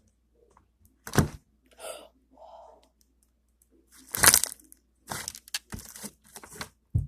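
Bead-filled slime being squeezed and poked by hand, giving sharp pops and crackles. The loudest pop comes about four seconds in, followed by a quick run of smaller pops.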